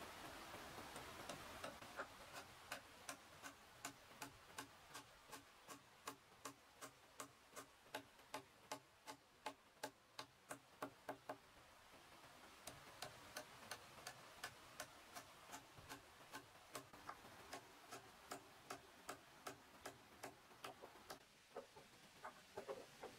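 A long run of sharp, evenly spaced taps, about three a second, with a short break about halfway through.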